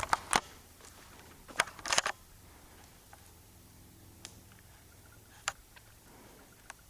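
A handful of short clicks and rustles, two small clusters in the first two seconds and three single ticks later, over faint hiss: handling and walking noise picked up by a hand-held camcorder.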